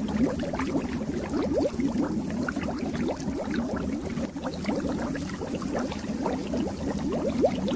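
Fish tank water bubbling and gurgling without a break, a dense stream of small bubbles popping and rising in pitch over a steady low hum.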